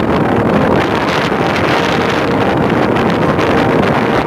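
Steady wind buffeting the microphone, with the continuous drone of a cargo ship's engine underneath.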